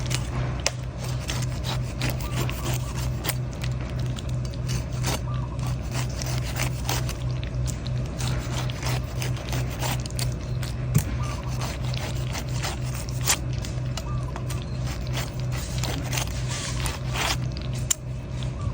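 Knife cutting and scraping a coconut: many short scrapes and taps, over a steady, evenly pulsing low hum.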